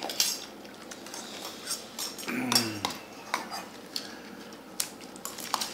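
Cutlery and dishes clinking: scattered light clicks and knocks of a spoon and plates being handled at a meal.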